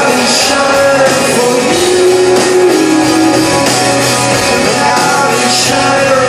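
Live rock band playing, with long held sung notes over guitars and drums, heard from the audience in the hall.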